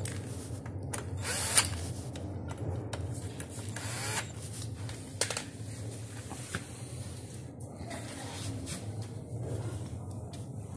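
Cordless drill driving bolts into the metal backrest mounting bracket of a gaming chair seat, with scattered clicks and knocks.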